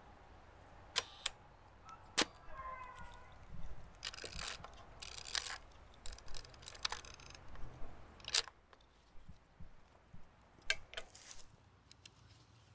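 Hasselblad 500 C/M medium-format film camera being worked by hand: several sharp mechanical clicks of the shutter and camera mechanism, and in the middle a few seconds of rapid ratcheting as the film is advanced and the shutter recocked.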